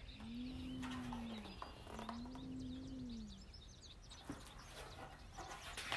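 A bird cooing twice: two long, low, even coos, each rising and then falling in pitch. These are followed by faint chirps from small birds.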